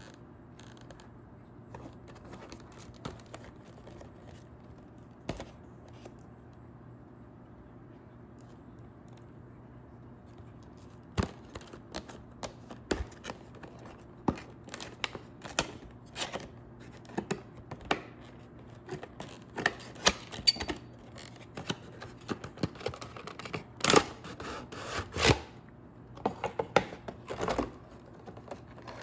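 Hands handling a cardboard diecast model box and its plastic tray over a low steady hum: only a few light taps at first, then from about eleven seconds in, frequent sharp clicks, scrapes and crinkles of cardboard and plastic as the box is opened and the plastic tray is slid out.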